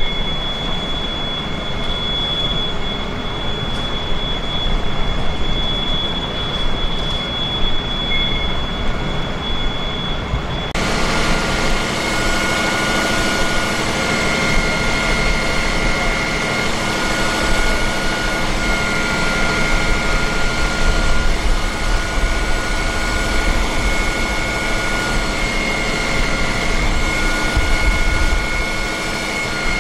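Mercedes-Benz fire engine running while parked, a steady drone with several high, level whining tones. It starts about ten seconds in, after a sudden cut from a different steady mechanical drone carrying a single high whine.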